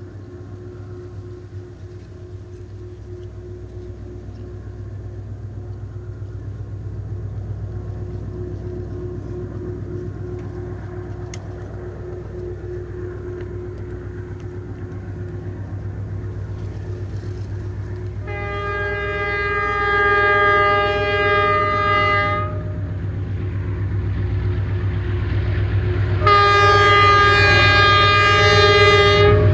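A DF8B diesel-electric freight locomotive approaching with an empty ballast train, its engine running as a low, steady growl that grows louder all the way through. About two thirds of the way in it sounds its horn in one long blast of about four seconds, and a second long blast starts near the end and is still sounding.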